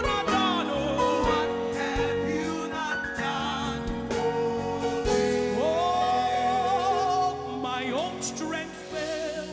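Live gospel worship music: a singer holding long, wavering notes over a band and backing vocals, with drum hits through the first half. The music softens near the end.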